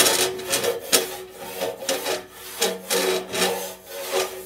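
Long-handled rasp scraping back and forth inside a large metal organ pipe, filing solder drips off the inner wall. The strokes come about twice a second over steady ringing tones from the pipe.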